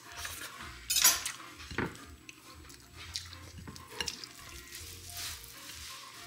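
A crisp, cheese-baked flatbread on a ceramic plate is torn apart by hand, its crust crackling. About a second in, a metal knife clinks sharply, and a few lighter clicks follow later.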